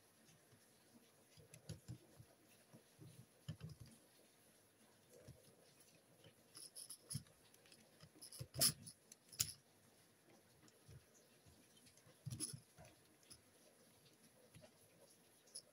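Faint clicks and taps of hard plastic as the head and jaw of a Zoids Zarwolf toy are handled. A couple of sharper clicks come a little past halfway, and another later.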